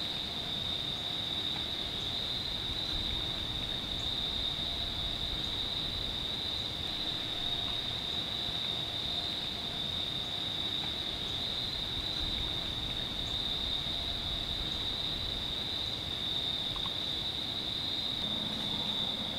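Crickets chirping in a steady, unbroken high-pitched chorus.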